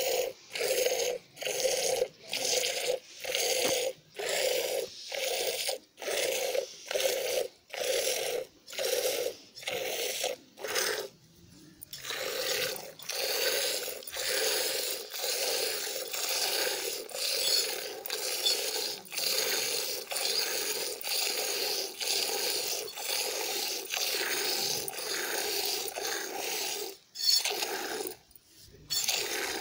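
Goat being milked by hand: rhythmic squirts of milk hissing into a steel vessel already holding milk, about one and a half to two squirts a second. There is a short pause about a third of the way in, after which the squirts run closer together.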